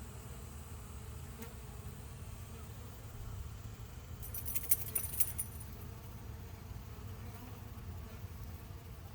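Honeybees buzzing as they fly around the hive entrance in an orientation flight, a steady hum. About four seconds in, a brief high rattling jingle lasts about a second.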